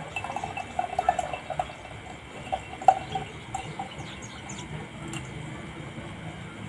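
Calamansi juice being poured into a glass jar, trickling and dripping with small splashes, heaviest in the first second and a half with a louder splash about three seconds in, then thinning to a few faint drips.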